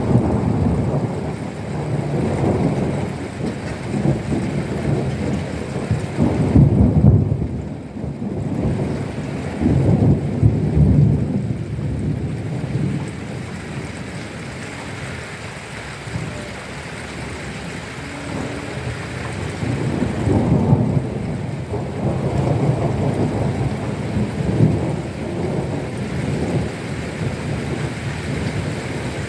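Thunder rumbling in several long rolls over steady rainfall; the heaviest rolls come about seven and ten seconds in and again about twenty seconds in.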